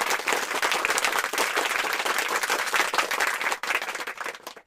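A crowd applauding: dense, steady clapping that thins out and fades near the end.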